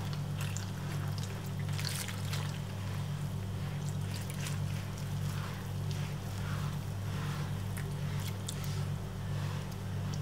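Warm water trickling from a glass onto flour while a hand squeezes and works it into dough, with soft rustling strokes. A steady low hum runs underneath throughout.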